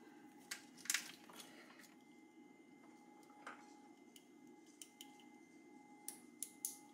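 Faint scattered clicks and rustles of small plastic wiring-harness connectors and wires being handled, over a low steady hum.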